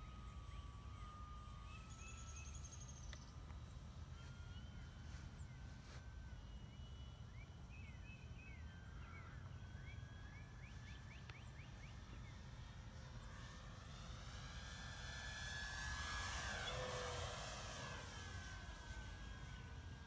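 Electric motor and propeller of a Flightline F8F Bearcat 1200mm RC warbird flying overhead: a faint steady whine that swells to a close pass about sixteen seconds in and then fades, over a low steady rumble.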